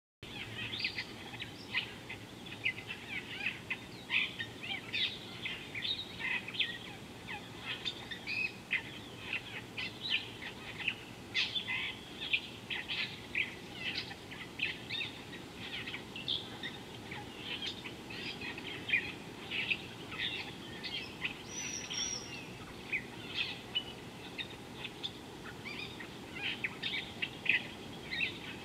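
Birds chirping in a dense, continuous chorus of short, high calls, several a second, over a low, steady background rush.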